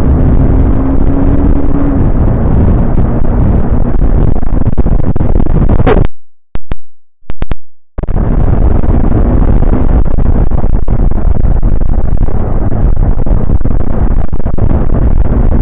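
Loud wind blast on the microphone of a rider on a moving motorcycle, a steady rushing rumble with the bike's engine note faintly under it near the start. About six seconds in the sound drops out for about two seconds, with a few clicks, then the wind noise returns.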